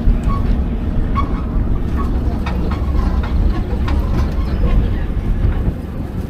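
Open-air parking-lot tram on the move: a steady low rumble of the drive and tyres, with loose rattles and clicks from the open passenger car.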